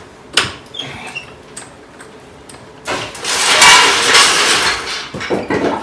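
Steel floor jack rattling loudly for a couple of seconds as it is wheeled over the shop floor, with a click before it and a few short clanks near the end.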